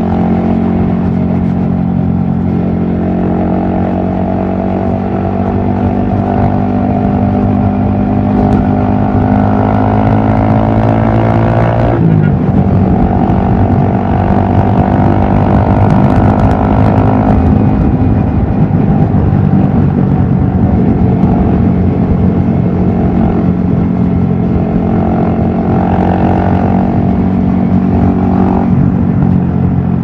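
Yamaha XSR155's single-cylinder engine running under way, with wind noise on the helmet-mounted microphone. The engine note climbs slowly for about twelve seconds and drops sharply at a gear change. After that it holds fairly steady at cruising speed.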